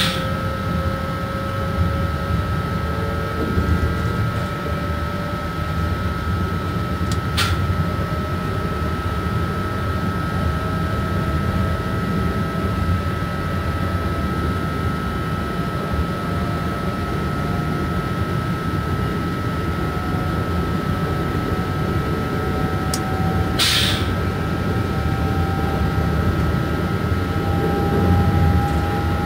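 BB 27300 electric locomotive under way, heard from inside the cab: a steady rumble of the running gear on the track, a constant high tone, and a faint motor whine slowly rising in pitch as the train gathers speed. Three brief sharp noises stand out: one at the start, one about seven seconds in and one near the end.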